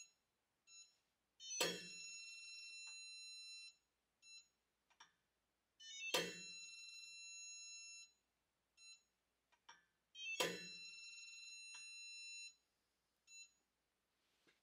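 Three times, a split-beam click torque wrench gives its sharp click as it reaches the set torque on a CDI digital torque tester, and each click is followed by about two seconds of the tester's steady electronic beep. A few very short beeps come between.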